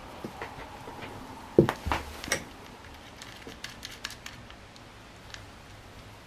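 Sharp clicks and knocks of small rifle parts and tools being handled on a workbench while sling mounts are taken off an air rifle. The loudest knock comes about a second and a half in, with a few more close after it, then lighter scattered clicks around the middle.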